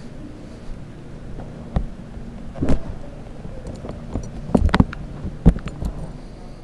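Several sharp knocks and clicks over a steady low hum, with light high ticks scattered between them, a quick cluster of knocks a little past the middle.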